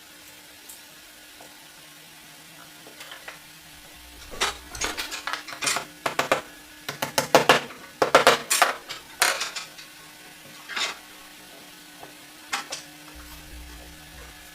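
Small hard objects being handled and knocked together: a quick run of clicks, clatters and scrapes starting about four seconds in, then two single knocks near the end.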